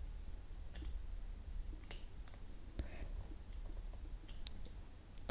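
Faint, scattered plastic clicks and fingernail scrapes from fingers working at a GoPro Hero 9 Black's battery door, trying to slide it down to open it.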